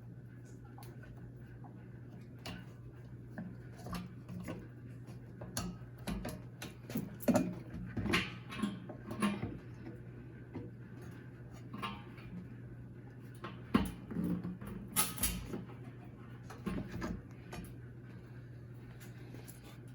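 Clicks, knocks and clatter of washer parts and tools being handled during a top-load washer rebuild, busiest in two stretches, over a steady low hum.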